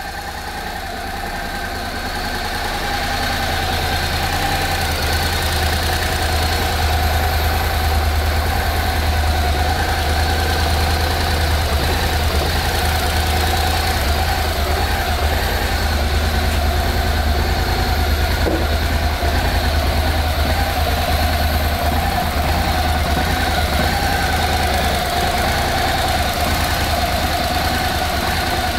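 Honda NC700S's 670 cc parallel-twin engine idling steadily with an even low beat, getting louder over the first few seconds.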